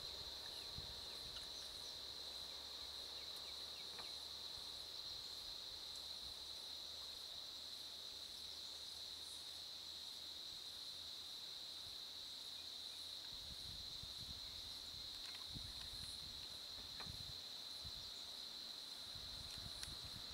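Steady chorus of insects in roadside jungle vegetation: one continuous high-pitched drone that does not change, with faint low rumbles in the second half.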